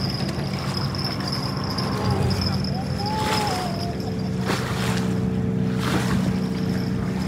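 A motor running steadily with a low drone, under a constant thin high whine, with a few brief swishes.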